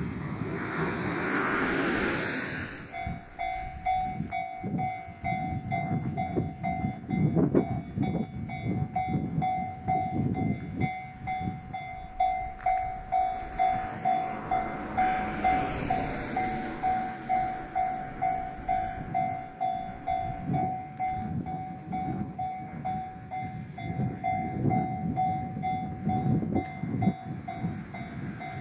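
Japanese level-crossing warning bell ringing in a steady pulsing clang, starting about three seconds in, as a diesel train rumbles past with a rhythmic wheel clatter.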